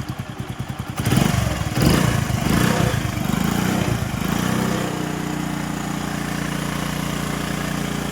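Hero HF Deluxe motorcycle's single-cylinder four-stroke engine running after a new timing chain was fitted. About a second in it is revved unevenly for a few seconds, then it settles into a steady idle with no timing-chain rattle.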